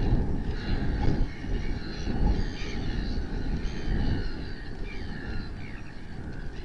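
Wind buffeting an outdoor microphone as an uneven low rumble that swells in gusts, with many small birds chirping and calling over it.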